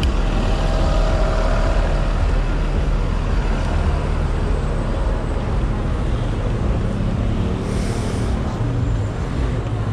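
Street traffic over a steady low rumble of wind and road noise, picked up riding a Xiaomi Mi 1S electric scooter, with a short hiss about eight seconds in.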